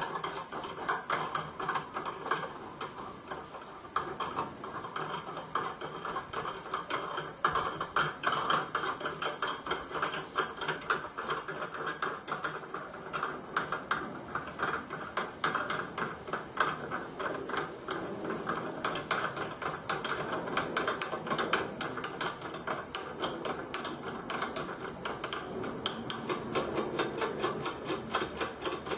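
Rapid metallic tapping and ticking, a few sharp strikes a second, growing more even and regular near the end.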